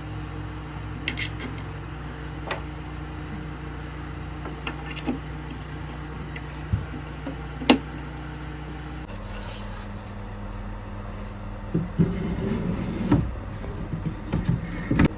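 Wooden shelves being slid and set into a dresser: scattered knocks and clicks, then a busier stretch of wood knocking and scraping in the last few seconds, over a steady low hum.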